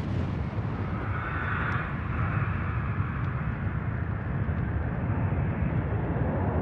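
Deep, steady rumble of a huge explosion, the sound of a nuclear blast, with a hissing rush over it in the first couple of seconds.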